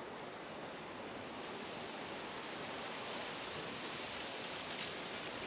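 Steady outdoor background hiss, even and featureless, with no distinct mechanical event.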